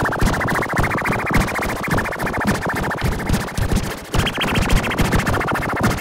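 Electronic emergency-alert (EAS-style) alarm: a harsh, rapidly pulsing buzz that jumps up in pitch as it starts and again about a second in, then drops about four seconds in, over irregular low thumps.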